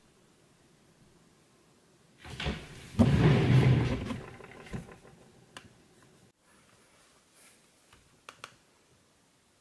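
Close handling and movement noise, rustling and bumping for about two seconds, loudest about three seconds in, as a person moves right up to the camera. Near the end, a few light clicks from a laptop trackpad.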